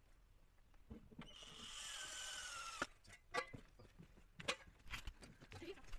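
Cordless drill driving a screw into wood: a motor whine lasting about a second and a half with a falling pitch, cutting off sharply. A few knocks and clicks follow.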